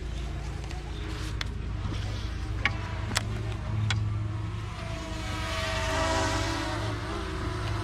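Boat motor running with a steady low hum, with a few sharp clicks in the first half; a louder, wavering swell of noise rises and fades about five to seven seconds in.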